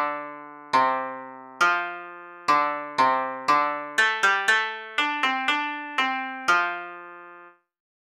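Background music: a short melody of single struck notes, each ringing and fading, coming faster in the middle, then stopping shortly before the end.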